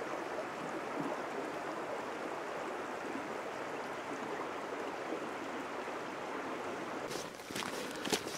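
Steady rushing of a small moorland stream, with a few sharp clicks and knocks near the end.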